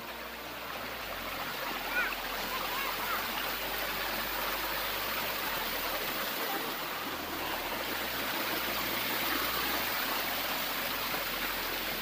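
Shallow river rushing over sandstone rocks just above a waterfall: a steady rush of water that grows louder over the first couple of seconds, then holds.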